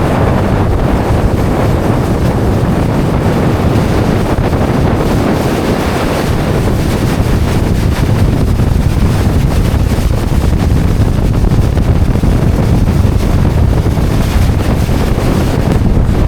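Loud, steady wind buffeting the microphone on a boat under way, with rushing water underneath.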